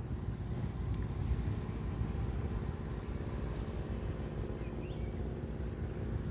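Wind buffeting the microphone in a steady low rumble, with a faint constant hum underneath.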